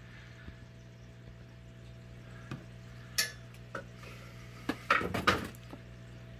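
Sharp hard clinks and taps, a few single ones and then a quick cluster past the middle, from a phone being handled against the aquarium glass. Under them runs the steady low hum of the air pump driving the tank's sponge filters.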